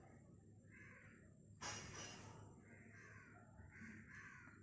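Near silence: faint room hum with a few faint animal calls in the background and a short rush of noise about one and a half seconds in.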